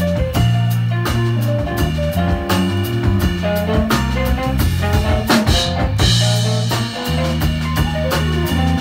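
Live jazz quartet playing: electric bass line, drum kit and keyboard, with a cymbal wash a little past the middle.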